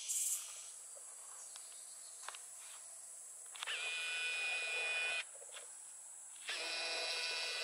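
Outdoor ambience: a steady high-pitched hum, with two drawn-out pitched calls of about a second and a half each, the first beginning with a short rise in pitch.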